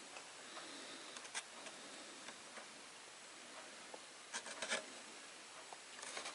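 Faint handling noise while a disassembled TV is worked on: a few light clicks over a steady hiss, then a quick cluster of small clicks and knocks about four and a half seconds in.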